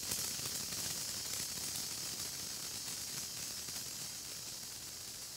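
Senko hanabi (Japanese incense sparkler) sizzling as its molten dross ball throws off sparks: a steady, high, fine-grained hiss that fades slightly.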